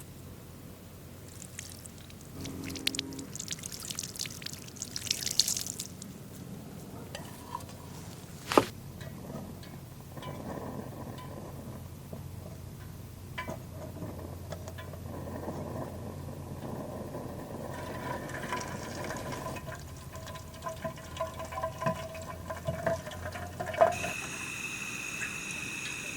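Liquid being poured, mixed with the knocks and clicks of gear being handled. A sharp knock comes about eight seconds in and another near the end.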